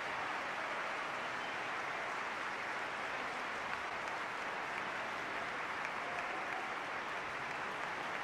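A large audience applauding, a steady, even wash of clapping.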